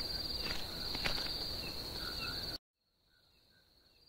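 Crickets chirping in a steady, shrill trill, with a few soft clicks in the first second or so. The sound cuts off abruptly about two and a half seconds in, then returns much fainter.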